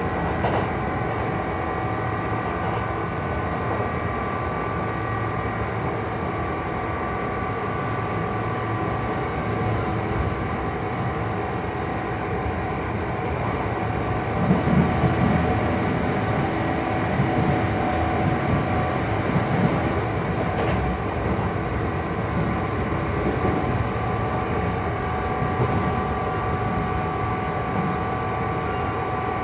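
Running sound inside a Kintetsu 2800 series motor car with resistance control and Mitsubishi MB-3110A traction motors. The motor and gear whine holds a steady pitch over the rumble of wheels on rail, with a louder rumble about halfway through. This is a low-tone car, and its couplings give off an odd noise that makes it sound unlike other low-tone cars.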